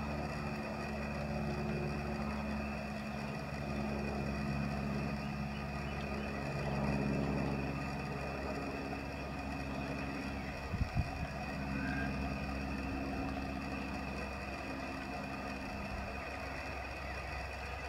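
Steady engine-like hum of a motor running, its low pitch shifting slightly now and then, with a few low thumps about eleven seconds in.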